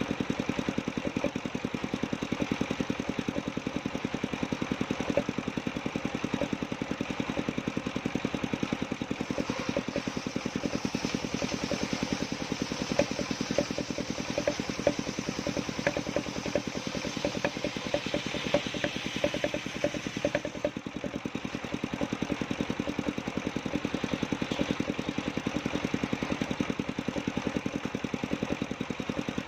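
Engine of a circular sawing machine running steadily with a fast, even firing beat. A higher, noisier layer swells in the middle and fades again.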